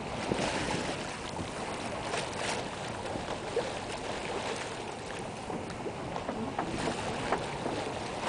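Wind and water noise aboard a sailboat moving across the bay: a steady wash of water along the hull with wind buffeting the microphone, and a few brief faint ticks.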